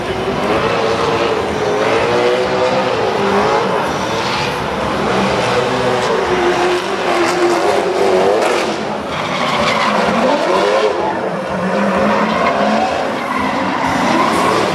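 Drift cars running at high revs, the engine note rising and falling repeatedly as the drivers work the throttle, with tyres squealing and skidding through the slides.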